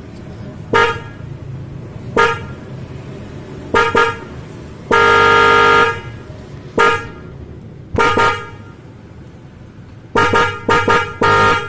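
Hella twin-tone car horn, its two notes sounding together, honked in a string of short taps with one long blast of about a second in the middle and a quick run of taps near the end.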